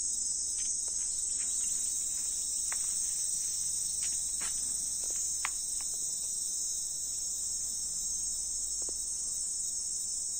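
Insects droning steadily at a high pitch, with a few faint short chirps scattered through it.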